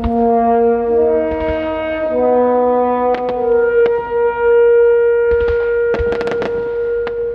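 Horn-like music over the loudspeakers: long held chords that change every second or so. Sharp bangs cut through it about three seconds in, and a cluster of them comes about five to six and a half seconds in.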